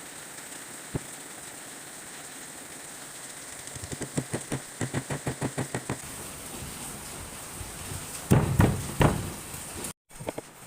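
Light, even tapping, about six taps a second for two seconds, then a few louder knocks near the end, over a steady hiss.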